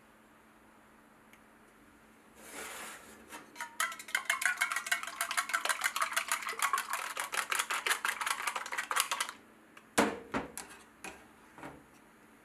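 Chopsticks beating two raw eggs in a stainless-steel sierra cup, a rapid, even clicking against the metal sides for about five seconds, after a short rustle. A few separate knocks follow near the end.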